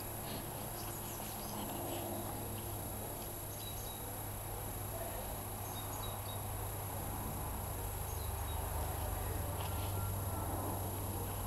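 Quiet outdoor background: a steady low hum with a few faint, short high chirps scattered through it.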